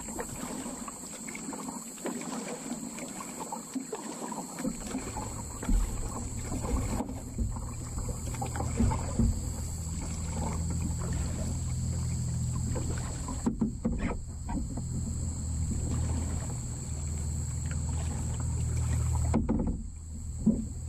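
Kayak paddling: irregular small splashes, drips and light knocks of the paddle on water and hull, under a steady high-pitched buzz. A low steady rumble comes in about five seconds in.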